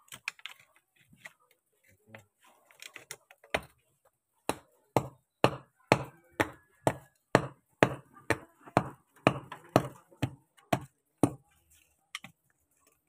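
A steady run of sharp blows, about two a second and some fifteen in all, starting a few seconds in and stopping near the end.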